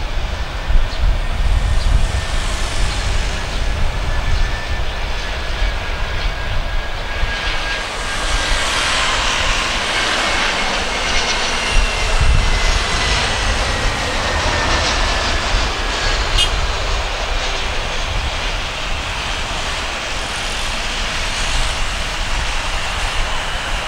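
Airbus A320-216's CFM56 jet engines on landing approach: a steady rush of jet noise with a whine that is loudest and falls slightly in pitch as the airliner passes, roughly eight to fifteen seconds in.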